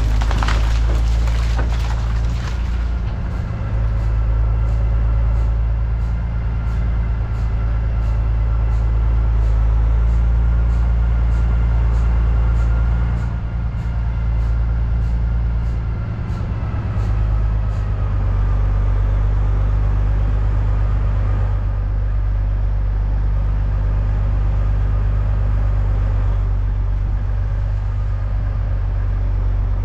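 Loaded truck's engine running steadily with a deep, low drone as it drives along a gravel road. There are a few knocks and rattles in the first couple of seconds.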